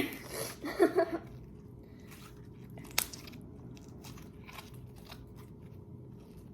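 Slime with clay mixed in being kneaded and squeezed by hand: faint, irregular sticky crackling and squishing, with one sharp click about three seconds in.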